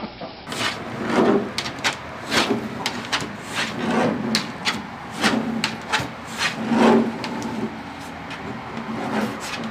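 A tortoise's claws scratching and its shell knocking on a plastic children's slide: a run of sharp scrapes and clicks, with a duller knock every second or so.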